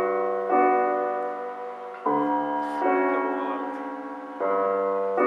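Slow piano music: held chords struck about every second or two, each fading away before the next.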